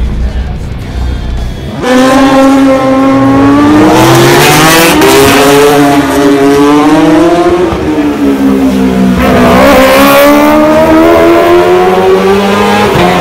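Racing sidecar outfit's engine at high revs, coming in loudly about two seconds in. The engine note climbs through the gears, drops near the middle, then climbs again as the outfit drives on.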